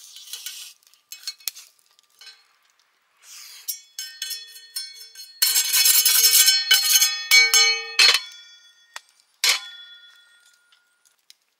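Metal camp gear being handled: light clinks, then a loud rattling clatter of metal on metal with ringing tones about halfway through, and two single clanks near the end.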